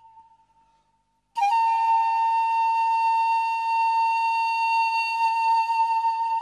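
Background music: a held flute-like note fades out, and after a brief silence a new sustained note starts suddenly about a second and a half in and holds steady.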